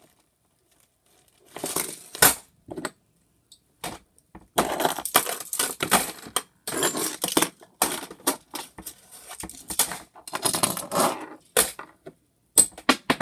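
Hands rummaging through a metal box of paper clips and small odds and ends: irregular clinking and rattling of small metal pieces mixed with handling rustle, in bursts that start about a second and a half in.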